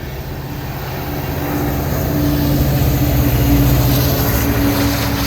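Diesel locomotive engine running under load as it passes, a steady low drone with a held tone that swells to its loudest a little past the middle. It is most likely the train's rear distributed-power unit, BNSF 8759.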